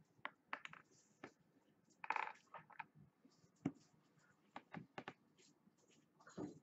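Faint scattered taps and knocks with a short rustle about two seconds in: hands and arms shifting on a kitchen countertop.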